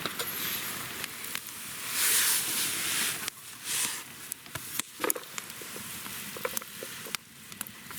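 Chili vegetables sizzling in a frying pan, the sizzle surging louder for about a second from two seconds in, with scattered clicks from stirring.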